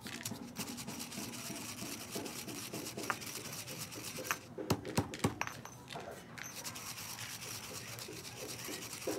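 Stone pestle grinding dry noodle pieces in a granite mortar: continuous gritty scraping and crunching, with a few sharp knocks of the pestle a little past halfway.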